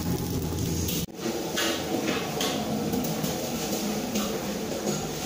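Kitchen handling noise: faint knocks and rustles of things being moved on a stainless-steel work table over a steady background hum. The sound breaks off sharply about a second in, then carries on as a busier low rumble with a few more light knocks.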